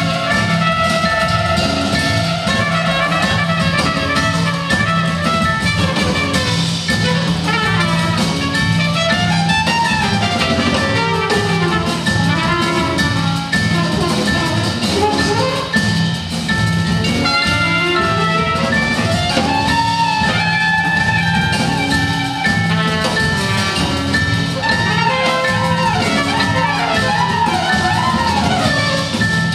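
Large jazz ensemble playing live: brass and drum kit over a steady low drone, with melodic lines sliding up and down in pitch.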